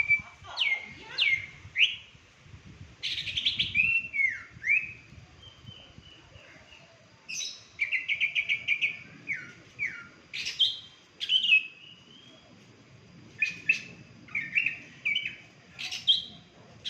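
A songbird singing in short repeated phrases of sharp downward-sweeping notes, with brief pauses between phrases.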